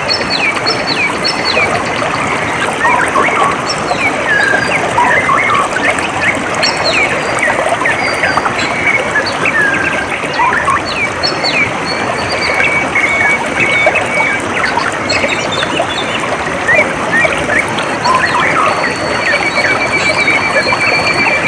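Water flowing and trickling steadily, with many small birds chirping in short calls over it and a buzzy trill held for a couple of seconds near the end.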